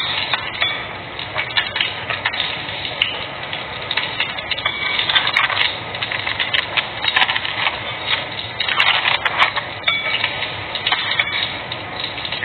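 A spoon and hands working food in a ceramic bowl, with irregular scraping, clinks and crackling throughout.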